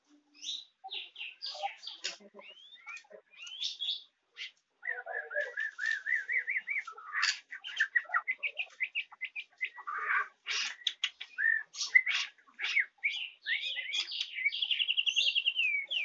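White-rumped shama (murai batu) calling in short, broken bursts of chirps, clicks and brief twittering phrases rather than full song. A quick repeated warble comes about five seconds in, and a fast buzzy trill near the end. The owner puts this fragmentary 'ngeriwik' and 'tekek-tekek' calling down to a newly arrived bird not yet in condition.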